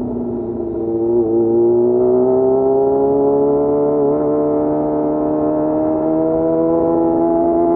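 Yamaha FZ6 motorcycle's inline-four engine pulling under steady throttle, its revs dipping slightly about a second in and then rising slowly and evenly.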